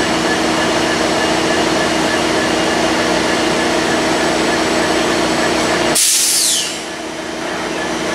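EMD F59PHI diesel locomotive idling at a station stop, a steady engine hum with several steady tones. About six seconds in, the engine sound drops away as a sudden burst of compressed-air hissing, falling in pitch, breaks out, then the engine sound slowly builds back.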